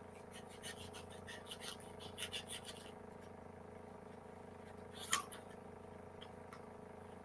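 Small micro-tip scissors snipping through patterned paper, a quick run of short cuts for about the first three seconds, then a single louder swish about five seconds in, over a faint steady hum.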